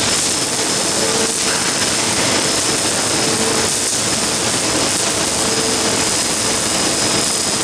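MIG welding arc laid down by a CNC gantry welding machine: a steady, unbroken hiss.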